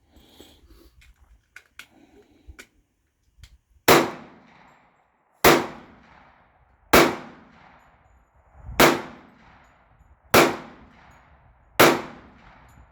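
A few faint clicks of gun handling, then six gunshots at a steady pace about a second and a half apart, each followed by a fading echo.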